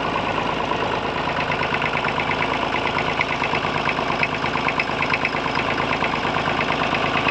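Massey Ferguson 35's three-cylinder diesel engine idling steadily while it warms up, with a knocking from one misfiring cylinder. Swapping injectors did not cure it, and the owner suspects a small blockage in the fuel injection pump.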